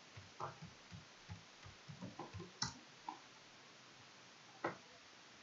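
Computer keyboard keys typed in a quick, irregular run of about a dozen faint taps, then a single tap near the end.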